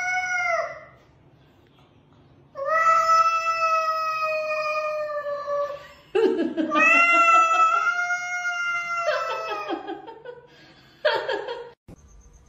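A cat yowling in a standoff with another cat: a short yowl, then two long drawn-out yowls of about three seconds each, and a brief yowl near the end.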